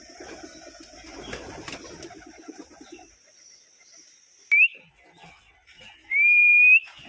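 Pigeons cooing for the first three seconds. Then come a short rising whistle and, near the end, a louder whistle held for more than half a second, rising slightly in pitch.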